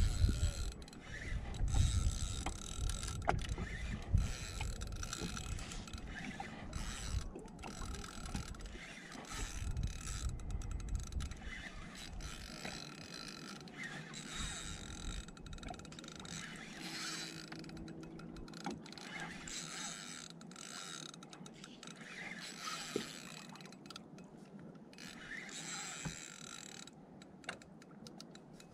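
Spinning reel being cranked in spurts against a large fish on light tackle, its gears whirring and rasping as line is gained. A low rumble runs under it for roughly the first dozen seconds.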